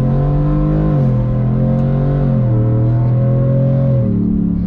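2021 Ford F-150's 5.0 L V8 accelerating hard, heard from inside the cab. The engine note climbs and drops twice as the transmission upshifts, about a second in and again near the end.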